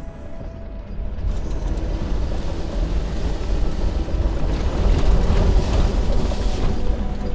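Vehicle driving on a bush track: deep engine and tyre rumble with wind noise, growing louder from about a second in and loudest around the middle, then easing.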